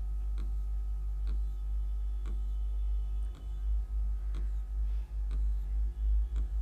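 Light clicks about once a second, the clicks of a slide-advance control as a slideshow is paged through quickly, over a steady low electrical hum.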